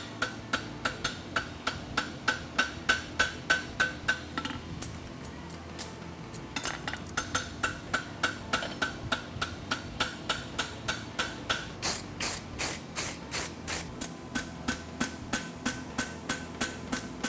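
Hand hammer striking a red-hot steel horseshoe on an anvil in quick, even blows, about three to four a second, each with a short metallic ring. The blows stop for about two seconds a little after four seconds in, then resume. The farrier is running the edges of the shoe on both sides for a hammer finish.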